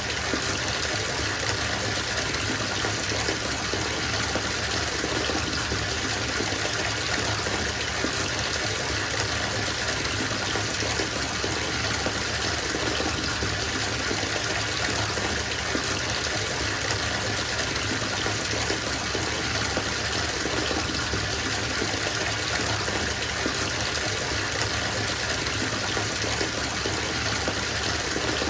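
Water gushing steadily from a bathtub tap into a filling tub, an even rushing splash with no change.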